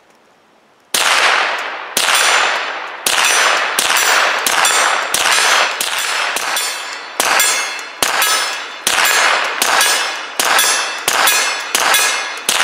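Rapid string of shots from a Mossberg Blaze .22 LR semi-automatic rifle, roughly two a second, each answered by the clang of a steel target ringing and fading. The string starts about a second in.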